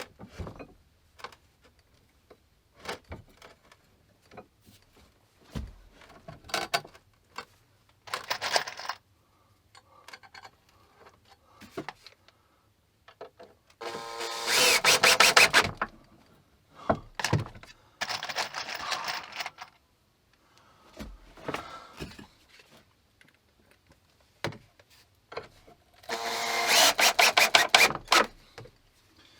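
Scattered knocks and clicks of handling screws and tools, with two loud harsh bursts of about two seconds each, one about halfway through and one near the end.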